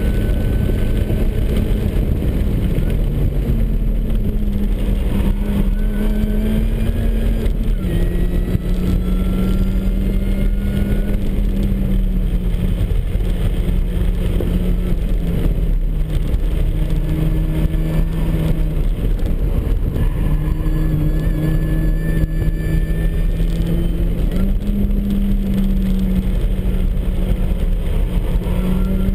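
Supercharged MINI Cooper S four-cylinder engine, heard from inside the car at track speed, its note rising and dropping in steps as the driver works the throttle and gears, with a thin rising whine over it.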